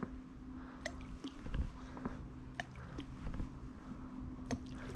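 Carp boilies thrown by hand landing in the lake: a handful of small, sharp plops scattered irregularly on the water, over a faint steady hum.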